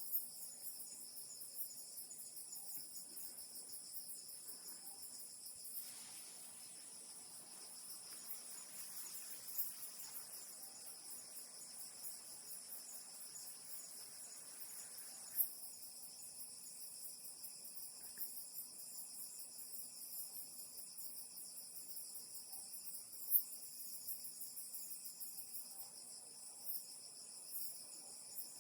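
Steady chorus of crickets and other insects, a continuous high-pitched trilling, with a few brief clicks.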